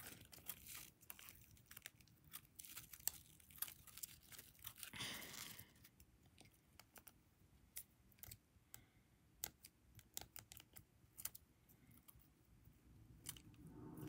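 Faint scissor snips, a scattering of short clicks, as excess thin green plastic is cut off a rubber-banded bundle, with a brief soft rustle about five seconds in.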